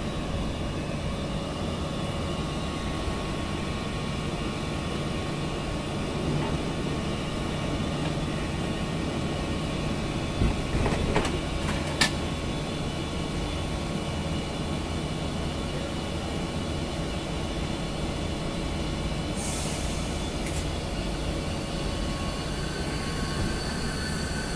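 Renfe Class 449 Media Distancia electric multiple unit standing at a platform, its onboard equipment humming steadily. About halfway through a few sharp knocks come as its door closes, then a short hiss of air, and near the end a rising electric motor whine as the train begins to pull away.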